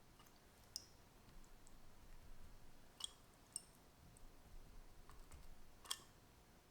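Near silence broken by four faint, sharp clicks spread over several seconds, the last one the loudest: small handling clicks of kitchen utensils during cake-making.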